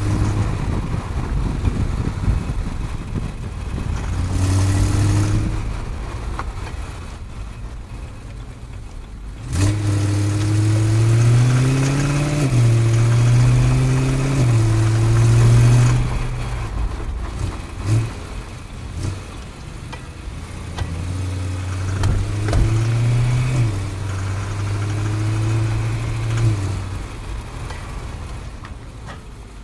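BMW E90 M3 drivetrain heard from beneath the car while driving: the V8 engine and driveshaft running, the pitch rising and dropping in steps as it accelerates and lifts off, with a few sharp metallic clicks. The rattle and tinks are what the owner blames on the driveshaft's middle CV joint and a dry centre support bearing.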